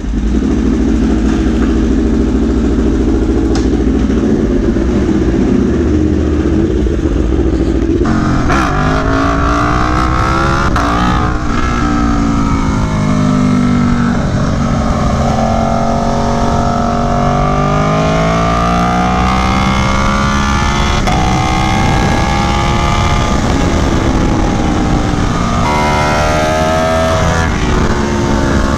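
Aprilia Tuono V4 1100 Factory's V4 engine through an SC Project CR-T exhaust, heard from on the bike at speed: a steady engine note for about the first eight seconds, then the revs repeatedly climbing and falling as the bike accelerates through the gears and slows into corners.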